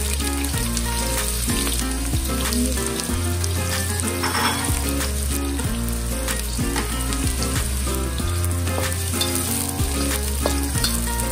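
Sliced red onions sizzling in hot oil in a wok, with a spatula stirring them near the end. Background music with a stepping bass line plays under the sizzle.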